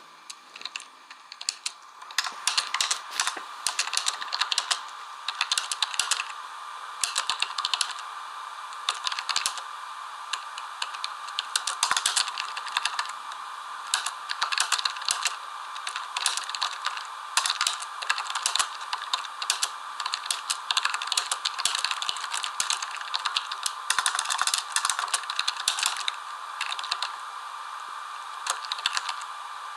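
Rapid, irregular clicking and rattling of small hard objects, picking up about two seconds in and going on steadily, with a faint steady tone underneath.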